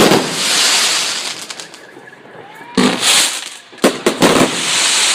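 Fireworks going off: a sharp bang followed by a long, fading hiss, then another bang near three seconds in and a quick cluster of cracks.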